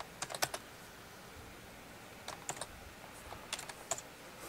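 Typing on a computer keyboard: a quick run of keystrokes at the start, then two more short runs of clicks a couple of seconds in, with pauses between.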